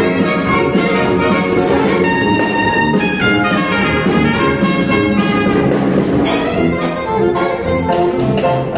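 Live jazz big band playing a stomp: saxophone section and brass over sousaphone, piano and drum kit, with a steady beat.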